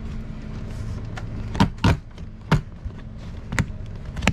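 A few short sharp knocks and clicks from handling the corrugated plastic vent hose and its fittings, over a steady low hum.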